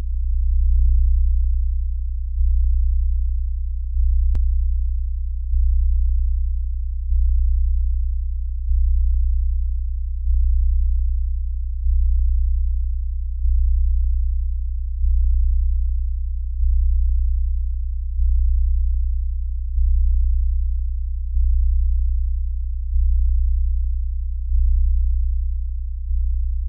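Deep synthesizer bass drone that throbs in slow, even pulses about every second and a half, each one swelling and then fading.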